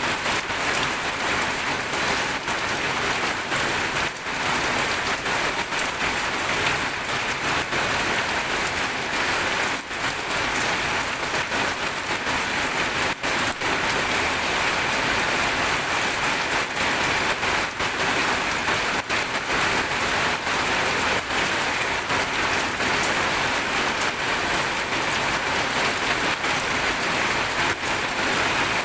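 Steady rain falling and pattering on surfaces, a dense, even hiss with no let-up.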